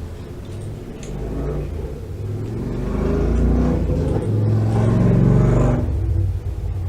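A motor vehicle driving past: a low engine rumble that builds over a few seconds, is loudest about three-quarters of the way through, then drops away.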